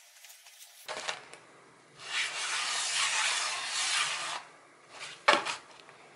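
A towel rubbed and pressed across a darbuka's plastic drumhead, a steady scuffing for about two and a half seconds, massaging the freshly heated head to ease its tension. A softer stroke comes about a second in, and one sharp knock near the end.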